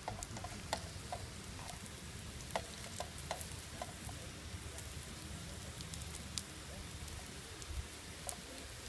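Slices of sucuk (Turkish spicy sausage) sizzling in oil in a small frying pan on a portable gas camping stove, with scattered crackles and pops throughout.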